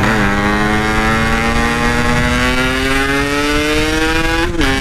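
Yamaha RX-King two-stroke single-cylinder engine with a stock-style aftermarket exhaust, pulling loudly in gear with its pitch rising slowly and steadily. Near the end the pitch drops suddenly and settles lower.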